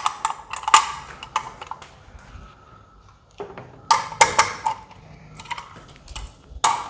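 Keys and metal door-lock parts clinking and rattling as they are handled, in a series of sharp, irregular metallic clicks with a quieter pause in the middle.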